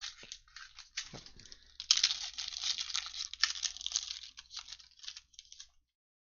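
Foil trading-card pack wrapper being torn open and crinkled as the cards are pulled out, loudest about two seconds in and stopping shortly before the end.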